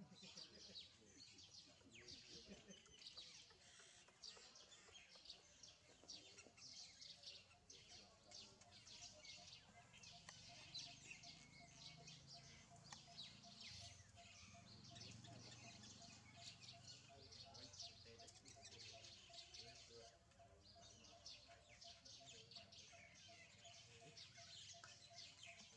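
Faint, continuous chirping of many small birds, with a faint steady pulsing tone underneath from about a third of the way in.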